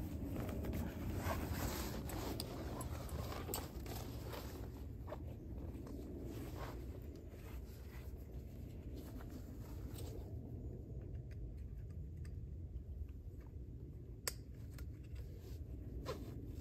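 A canvas backpack being lifted and put on: fabric rustling and strap handling, with scattered small clicks and one sharper click about three quarters through, over a steady low background noise.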